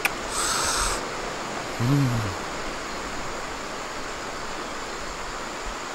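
Steady rushing hiss of a flowing river, with a man's short hum about two seconds in and a brief rustle near the start.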